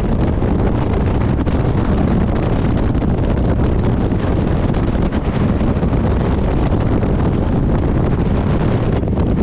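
Steady wind buffeting on the camera microphone aboard a jet boat running at speed, with the boat's engine and rushing water underneath.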